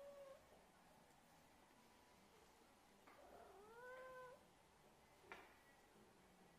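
Siamese cat meowing: the tail of one meow at the start, then a drawn-out meow about three seconds in that rises in pitch and levels off. A short click follows about five seconds in.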